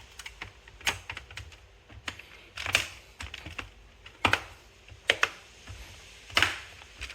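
Typing on a laptop keyboard: irregular key clicks with a few louder, heavier keystrokes spaced a second or two apart.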